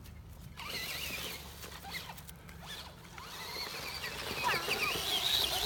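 RC monster truck's motor whining as it drives over grass, its pitch rising and falling with the throttle, growing louder from about halfway through.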